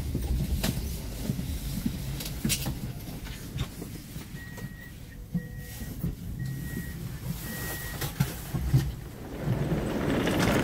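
SJ X2000 train carriage coming to a stop: a low rumble with clicks and knocks, and midway four short high beeps about a second apart, the train's door signal. Near the end the louder, busier noise of the station platform comes in.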